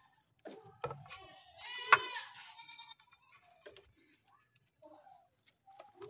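A few sharp clicks and knocks from hands working among the engine-bay wiring, the loudest about two seconds in. Around that same moment a drawn-out animal call sounds in the background.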